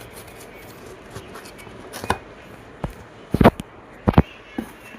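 Cardboard keyboard box being handled while someone starts to open it: several sharp knocks and thumps, the loudest a pair about three and a half and four seconds in.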